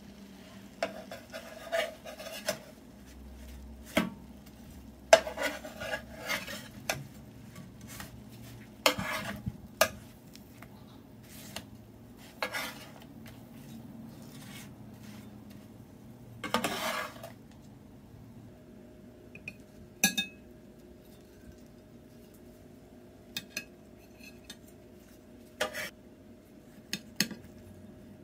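Metal spatula and spoon scraping and knocking against a nonstick frying pan in irregular strokes, with a few louder clatters.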